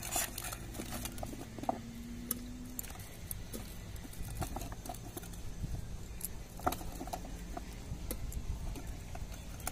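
Scattered light knocks and clinks as cubed potatoes are dropped by hand into an aluminium pressure cooker holding chickpeas and peas.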